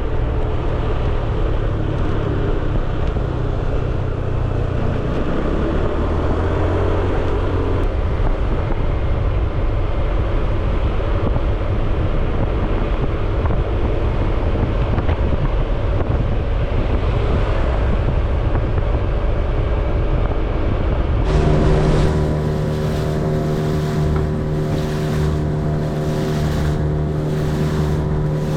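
Boat engine running under way, with wind buffeting the microphone and water rushing past the hull. About three-quarters of the way through the sound changes to a steadier engine hum with a clear pitch.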